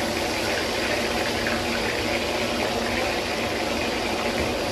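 Hilsa (ilish) pieces deep-frying in a large wok of hot oil, giving a steady sizzling hiss.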